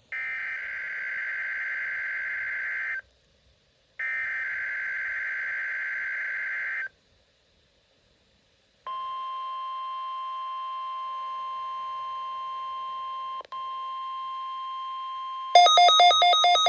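NOAA Weather Radio weekly test signal. Two buzzy three-second bursts of SAME digital header data come first. About nine seconds in, the steady 1050 Hz warning alarm tone starts. Near the end a louder rapid pulsing beep sounds over the tone.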